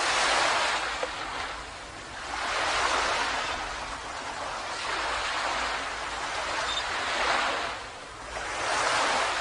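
Ocean waves breaking and washing up a beach, surging about every two to three seconds, over a faint steady low rumble.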